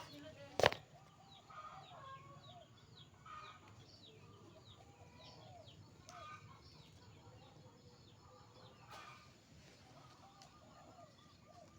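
Chickens clucking in short repeated calls, with small birds chirping quickly and high. A single sharp knock comes about half a second in.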